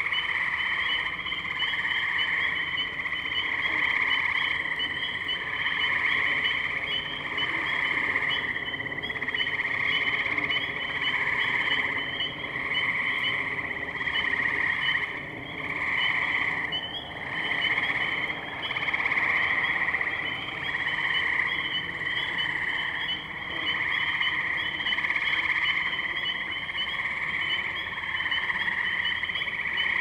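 A dense chorus of tree frogs calling continuously, many overlapping trills swelling and easing about once a second or so, with a higher layer of rapid chirps over them.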